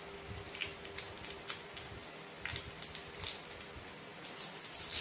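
Faint, scattered clicks and light taps of hands handling small kitchen items on a glass tabletop, over a faint steady hum that fades out near the end.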